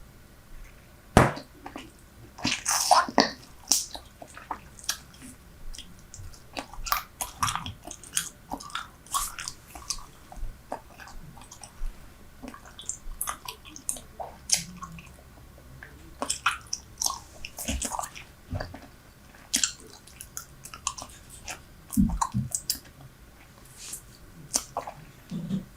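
Super Bubble bubble gum being chewed right against a microphone: irregular wet clicks and smacks, with a few louder ones.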